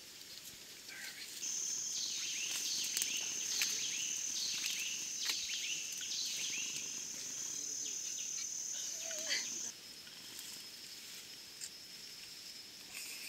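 Forest ambience: a steady high-pitched insect buzz that starts about a second and a half in and cuts off suddenly near the ten-second mark. Over it, a run of short descending calls repeats about twice a second.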